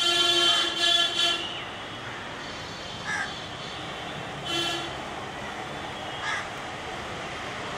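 A vehicle horn honks twice in quick succession, then gives one shorter toot about four and a half seconds in. Crows caw in between, over a steady background of outdoor noise.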